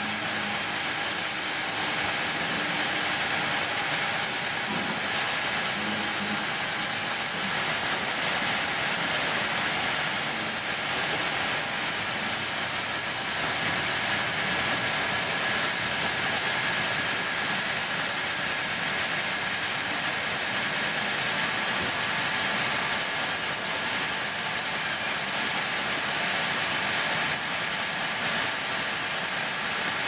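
Large vertical band-saw mill running with its blade cutting through a big teak slab: a steady hissing rasp of blade in wood, with a faint high whine held throughout.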